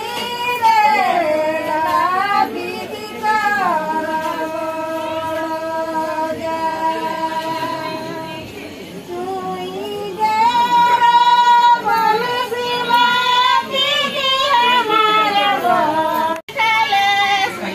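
Women's voices singing a slow song, holding long notes that slide up and down, with no instruments.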